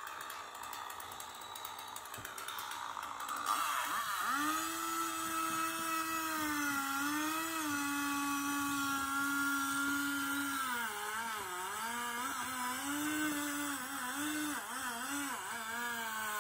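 A machine's motor or engine running with a steady whine, its pitch dipping and wavering up and down from about two-thirds of the way through.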